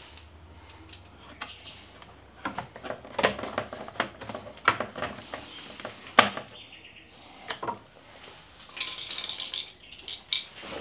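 Hand tools and small metal hardware clinking and knocking while screws and a licence-plate bracket are fitted under a motorcycle's tail, with a short run of rapid clicks near the end.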